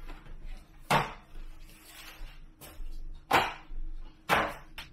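Small boxed military ration packs set down on wooden pallet tables: sharp knocks about a second in, then twice more about a second apart near the end.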